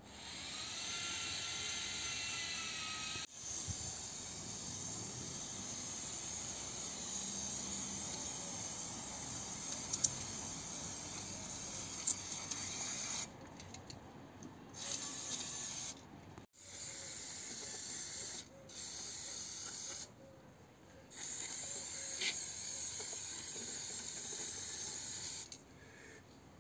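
Aerosol spray-paint can hissing in long bursts, broken by several short pauses.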